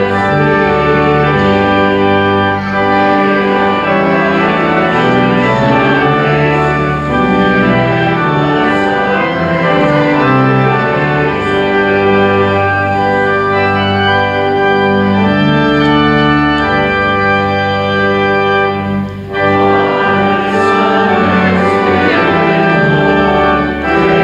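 Church organ playing a hymn tune in sustained chords that change from note to note, with a short break between phrases about three-quarters of the way through.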